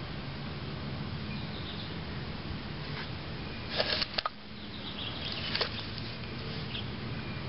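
Outdoor background with faint bird chirps over a steady low hum, and a few sharp clicks a little over halfway through.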